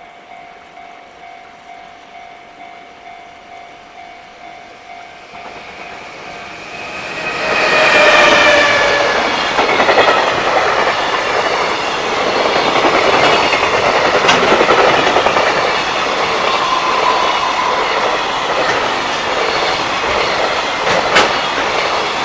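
Japanese level-crossing warning bell ringing in a steady repeated ding, then a JR Freight container train passes close by: its noise rises about seven seconds in and goes on as a continuous rumble and rattle of the container wagons, with a couple of sharp clacks near the end.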